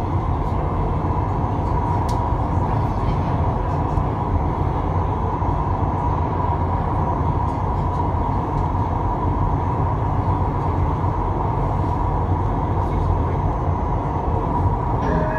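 Ui LRT UL000-series two-car light rail train running steadily through a tunnel, heard from inside the front car: a continuous rumble of wheels on rail with a steady high tone over it.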